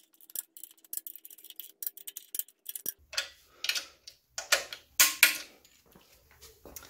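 Socket wrench ratcheting in fast light clicks as a bell housing bolt is turned. Louder irregular metallic clacks and knocks follow in the second half as the wrench is worked and handled.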